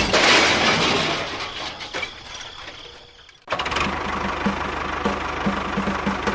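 A loud crashing noise fading away, then an engine suddenly running steadily with a faint regular pulse from about halfway through.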